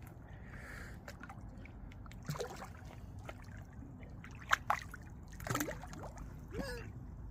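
Water sloshing and splashing at the lake edge as a hooked carp is drawn toward the landing net, over a low steady rumble. There are a few sharp knocks, the loudest about four and a half seconds in.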